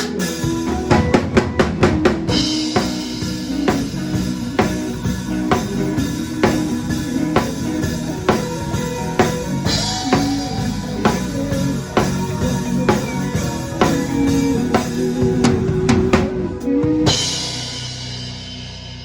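Live band playing, led by a drum kit with bass drum, snare and cymbals over a pitched bass line. A fast drum fill in the first two seconds leads into a cymbal crash, and the band stops on a final hit near the end that rings out and fades.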